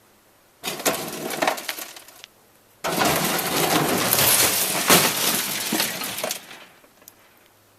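Big metal toolbox loaded with junk crashing and rattling as it tumbles. A short clatter comes about half a second in, then a longer, louder run of metal crashing and rattling lasts about three and a half seconds.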